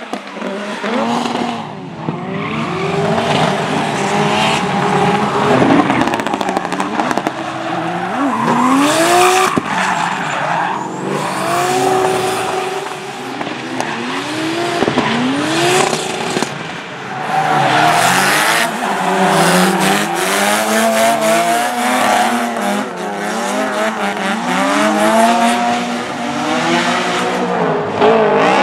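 Drift cars sliding through corners: high-revving engines rise and fall in pitch over and over as the throttle is worked, over a continuous squeal of spinning, sliding tyres.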